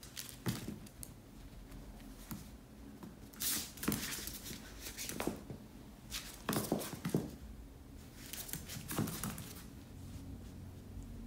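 Yorkshire terrier puppy playing with plush toys: irregular patter and scuffling of its paws and claws on a wooden floor, with rustling of the toys as it grabs and drags them.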